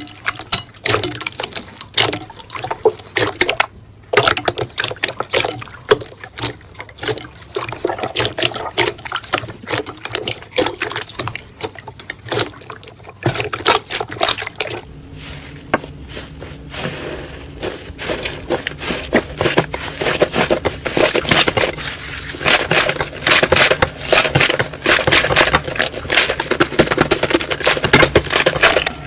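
Slime being squeezed, pressed and poked by hand: rapid, irregular wet clicks, pops and squelches, growing louder and denser in the second half.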